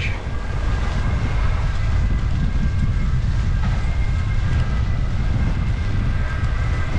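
Wind rumbling on the microphone of a bicycle ridden in steady rain, with a tram running close by: a faint steady high whine from about a second in until near the end.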